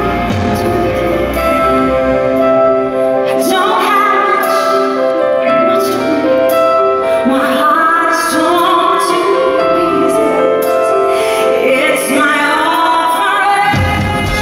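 Music with a woman singing over sustained instrumental accompaniment; the voice comes in a few seconds in.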